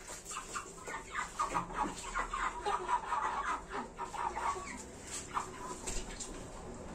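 A flock of broiler chickens clucking, many short calls overlapping. The calls thin out after about five seconds.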